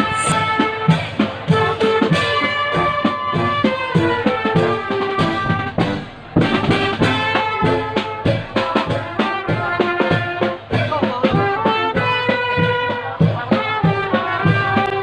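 Brass band music with trumpets and drums, briefly breaking off about six seconds in.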